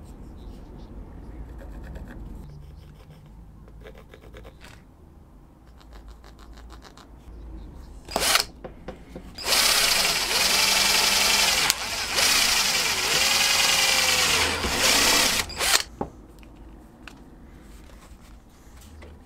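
Cordless drill boring through a 2.4 mm Kydex sheath into a wooden board. A short burst comes first, then about six seconds of drilling, the motor whine dipping and rising as the trigger is eased, before it cuts off. Faint tapping and scratching come before it.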